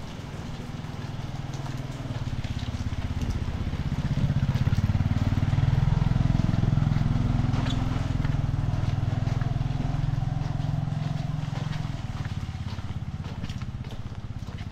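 A motorcycle engine running at low revs, getting louder over a few seconds and then fading away as it passes, over the hiss of rain.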